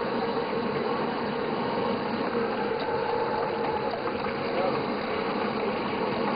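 Fish deep-frying in a large wok of hot oil, giving a steady sizzle.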